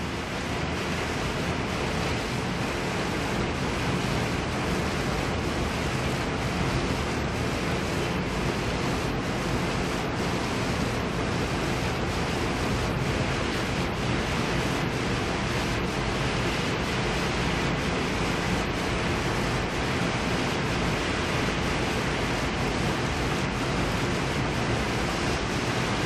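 Steady rain falling over a city: an even, dense hiss with a low rumble underneath.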